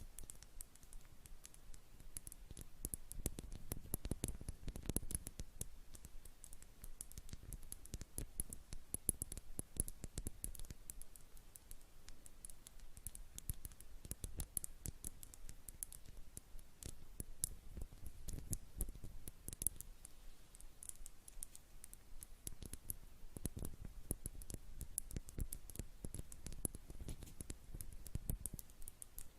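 A jar being tapped for ASMR: rapid, irregular light taps and clicks, many a second, with no pause.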